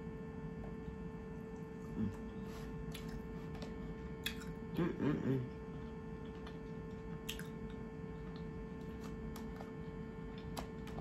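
A person eating crab legs: quiet chewing and scattered sharp clicks of shell being picked apart over a foil pan, with a short murmur of the voice about five seconds in. A steady electrical hum runs underneath.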